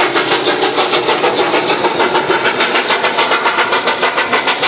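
Denver & Rio Grande Western No. 483 steam locomotive working a freight train, its exhaust chuffing in a fast, even beat, about five a second.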